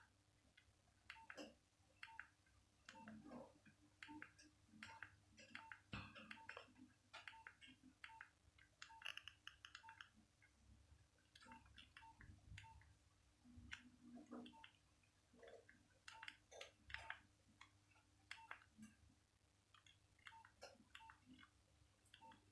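Faint, irregular clicks of a Nokia 1202 handset being handled and its keypad buttons pressed. A short soft beep repeats about twice a second through the first half and stops about halfway in.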